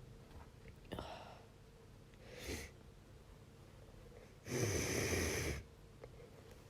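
A woman with a congested head cold sneezing and breathing hard. There are three noisy bursts: a sharp one about a second in, a shorter one a moment later, and the loudest, lasting about a second, just past the middle.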